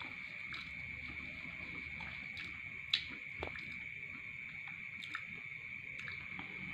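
A steady high-pitched trill that carries on unbroken, typical of crickets or other insects, with small scattered clicks and one sharper click about three seconds in, from eating and handling a small plastic tray of dates.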